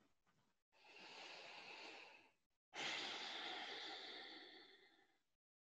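A woman's deep breath: an inhale about a second in, then a longer, louder sighing exhale that tapers off.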